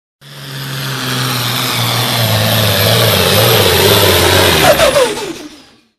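Pulling tractor's turbocharged diesel engine running hard under load and growing louder. A little under five seconds in its pitch drops as the engine comes off full power, and the sound fades away.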